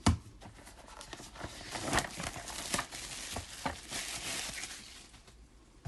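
Packaging being handled and unwrapped: crinkling and rustling with scattered light clicks and knocks.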